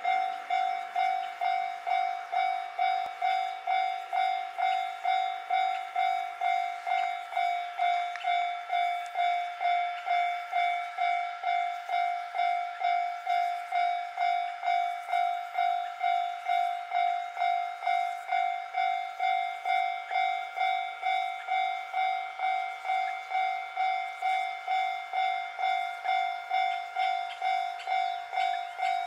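Japanese level-crossing warning bell ringing steadily: a pitched electronic ding repeated evenly at nearly two strikes a second, signalling that a train is coming.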